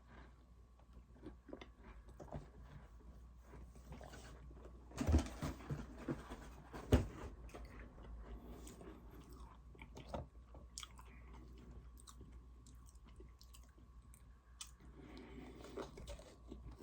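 Close-up chewing and crunching of Oreo treats, with many small crackles and two louder crunching bites about five and seven seconds in.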